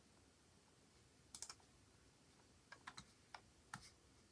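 A few faint, scattered clicks of a computer keyboard, about seven sharp taps in small groups, starting after about a second.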